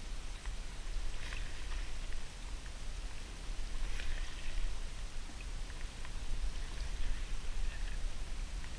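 Wooden canoe paddle dipping and pulling through calm water: a few soft, splashy strokes a couple of seconds apart, over a steady low rumble.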